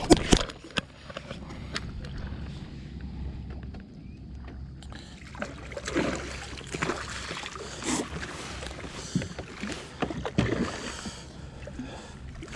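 Hooked striped bass splashing and thrashing at the surface beside a kayak as it is brought in, in many short bursts from about five seconds on. A few sharp knocks of gear against the plastic hull near the start.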